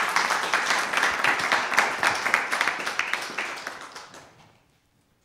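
Applause: several people clapping their hands together, dying away about four seconds in.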